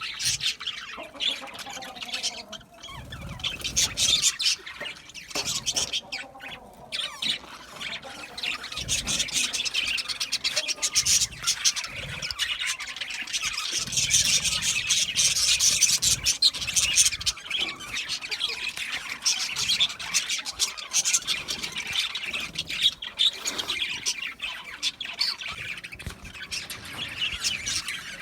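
A flock of budgerigars chirping and chattering continuously, many rapid overlapping chirps and squawks.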